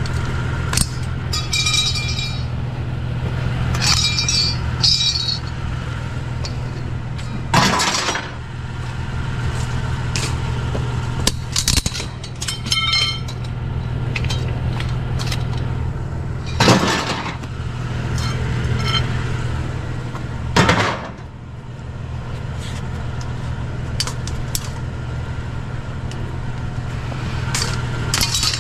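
Hard objects clinking and clattering as scrap items are handled, with a few louder scraping knocks, over a steady low hum like an idling vehicle engine.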